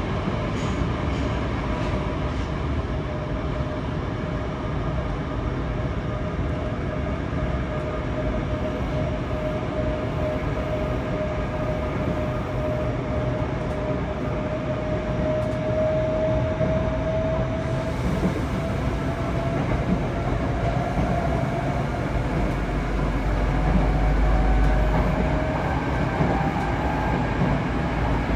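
Running noise inside a Yokohama Municipal Subway 3000S car with Mitsubishi IGBT-VVVF traction equipment: a steady rumble of wheels on rail, with a motor whine that rises slowly in pitch as the train gathers speed. A heavier low rumble comes in for a few seconds near the end.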